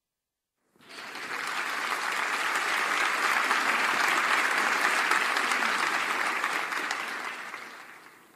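Audience applauding. It starts abruptly about a second in, holds steady, then fades away near the end.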